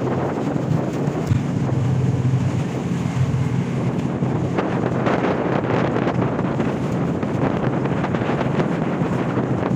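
Wind buffeting the microphone on a ship's open deck, over a steady low machinery hum.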